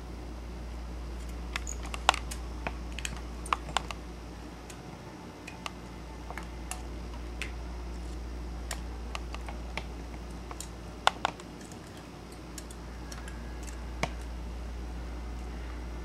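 Scattered small clicks and ticks of a precision screwdriver and fingertips working the screws and parts on an iPod Video's metal back plate, over a steady low hum.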